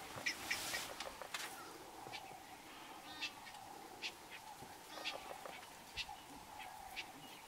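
Short, high bird-like chirps, scattered about once a second and clustered near the start, over a faint steady hum.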